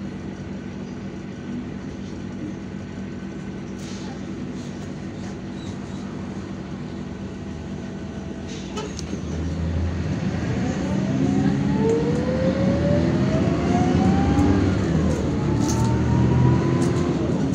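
Interior sound of a MAN A74 Lion's Classic city bus: the diesel engine running steadily at idle, then louder as the bus pulls away, with a whine that rises in pitch, drops back and rises again while it accelerates.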